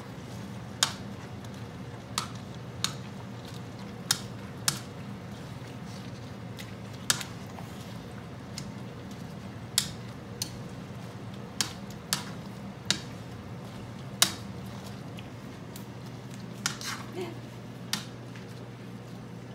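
A wire potato masher mashing hot cooked grapes in a nonstick skillet to press out their juice, its metal striking the pan in sharp clinks at uneven intervals, roughly one every second, over a steady low hum.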